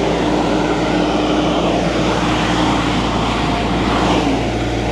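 Concrete pump truck running steadily while pumping concrete up its boom, with its engine and pump making a continuous loud machine noise and a steady hum.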